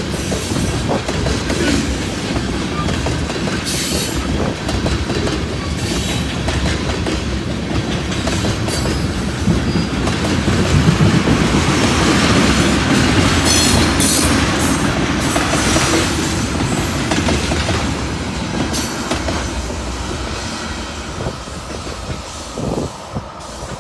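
Loaded freight train of tank cars rolling past, steel wheels clacking over the rail joints. It is loudest a little past midway, then fades near the end as the last cars go by.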